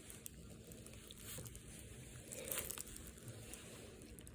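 Faint crinkling and rustling of plastic shrink wrap being torn and pulled off a sealed Blu-ray case, with a few soft handling noises.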